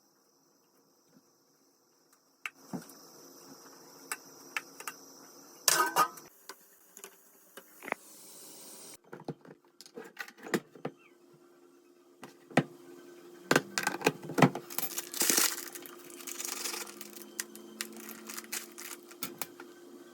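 Household objects being handled: scattered clicks, knocks and light clattering with some jingling, starting about two seconds in after near silence.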